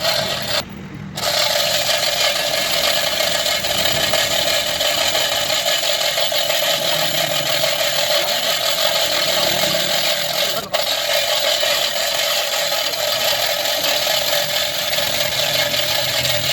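Steady, harsh noise of metal being worked on a bulldozer track roller. It breaks off briefly about half a second in, then runs on unbroken.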